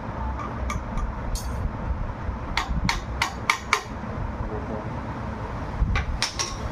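Light, sharp metal-on-metal taps as a piece of shaving blade is driven in as a shim to take up the play in a stand fan's motor, to stop its rattling noise. A few scattered taps come first, then a run of about five in the middle, then about three more near the end.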